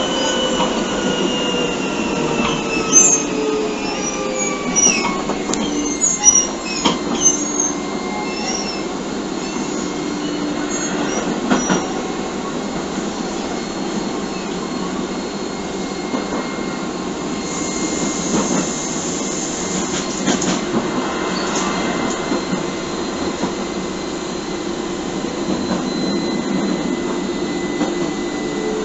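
Keio 7000 series field-chopper electric train running. Its motor whine falls in pitch over the first few seconds as it slows, then a steady high tone holds. Occasional clicks and knocks come from the wheels on the track, with a brief high-pitched noise about 18 seconds in.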